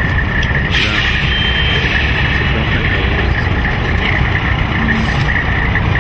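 Heavy trucks running on the highway, a steady low rumble, with short hissing bursts about a second in and again near five seconds in.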